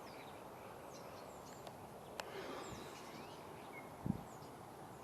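Faint, scattered short chirps and whistles of small birds over steady outdoor background noise, with a brief low thump about four seconds in.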